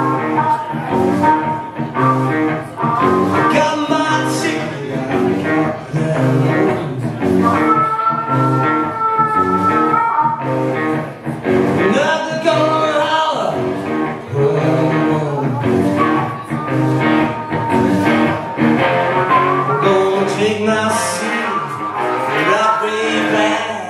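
Live rock band playing: electric guitars, electric bass and a drum kit, loud and continuous, with a held lead-guitar note partway through.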